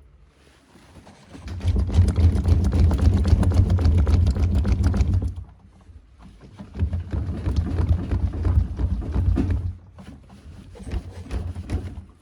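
Washing machine running an unbalanced spin with a small load of dry towels: the drum runs in three spells with short pauses between, with heavy rumbling and dense rattling and knocking from the machine.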